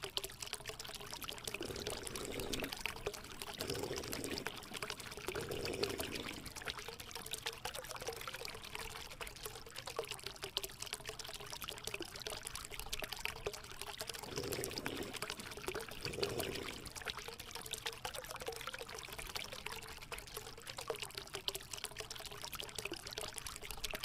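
Water pouring and trickling steadily from a small homemade pump-fed cement waterfall fountain.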